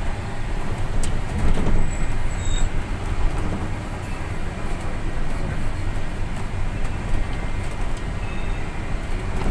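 City bus driving, heard from inside the cabin: a steady low engine hum with road noise.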